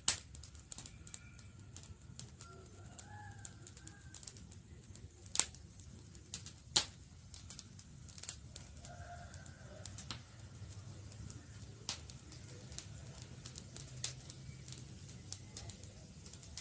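Wood campfire crackling, with irregular sharp pops and snaps over a low steady rumble; the loudest pops come about five and a half and seven seconds in. Birds call faintly in the background.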